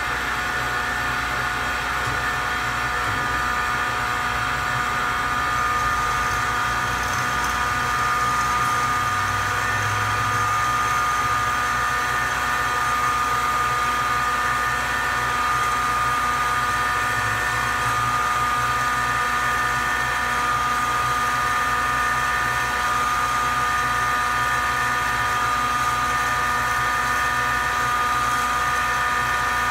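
DoAll C-305A automatic horizontal band saw running, a steady machine hum with a high whine.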